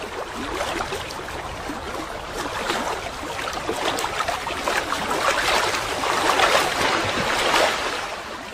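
Small waves lapping and splashing on open water: a steady wash full of little splashes that fades out near the end.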